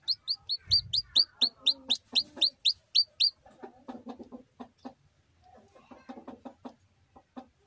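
Just-hatched chick peeping, a run of loud, high-pitched peeps at about four or five a second. A little over three seconds in, the peeps give way to lower, rapid clucking from an adult chicken, in two spells.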